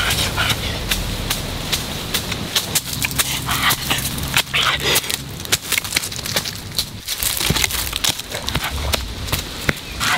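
Dry leaves and twigs crackling and rustling in a rapid, uneven run of small snaps, as of someone moving through dry forest undergrowth.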